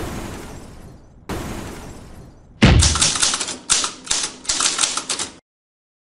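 Intro sound effects: a hit fading away, a second hit about a second in, then a quick run of typewriter key clacks, about four or five a second, that stops suddenly after nearly three seconds.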